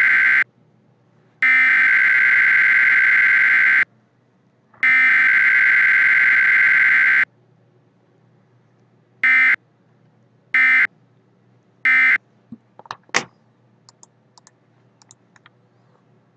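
Computer-generated EAS SAME header for a special weather statement: long bursts of buzzy digital data tones, about two and a half seconds each with a second's gap, sounded three times. Three short bursts of the end-of-message code follow, then a few faint clicks.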